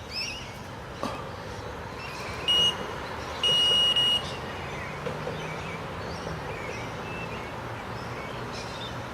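Electronic carp bite alarm beeping twice, a short beep then a longer one, as a fish twitches the line: a cautious, nibbling bite rather than a run.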